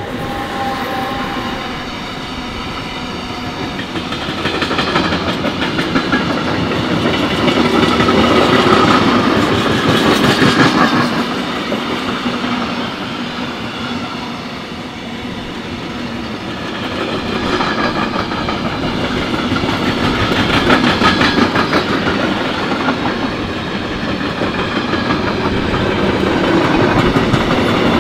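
Electric-hauled container freight train rolling past close by: a steady rumble with a dense clatter of wagon wheels on the rails, swelling and easing as the wagons go by.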